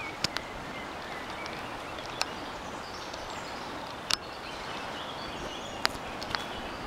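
Steady rush of the Rhône's current flowing past the bank, with faint birdsong over it and a handful of sharp clicks scattered through.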